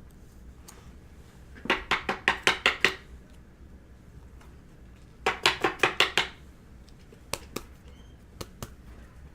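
Baseball cards being handled and flipped through on a table: two quick runs of sharp clicks, about eight in a second each, then a few single clicks near the end.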